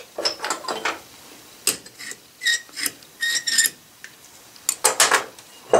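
Irregular light metallic clicks and clinks of small steel tools and parts set against a steel three-jaw chuck body, a few of them with a brief ring.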